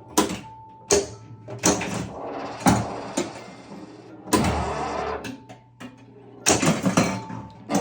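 Pinball machine in play: a string of sharp knocks and clacks from the ball, flippers and solenoids, about ten in all, with quieter game sounds from its speakers between them.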